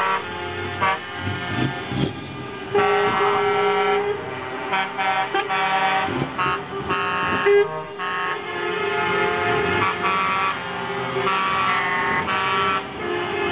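Truck air horns blowing again and again, several tones sounding together, as a convoy of heavy lorries drives past, with the trucks' engines running underneath.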